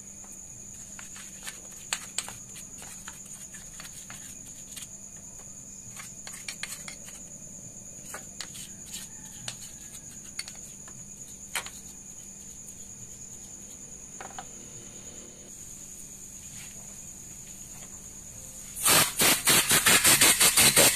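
Small scattered clicks and taps around an open motorcycle clutch housing, over a steady high-pitched tone and a faint low hum. About nineteen seconds in, compressed air from a compressor blow gun starts hissing in rapid loud bursts, blowing petrol and dirt out of the Yamaha Byson's clutch housing.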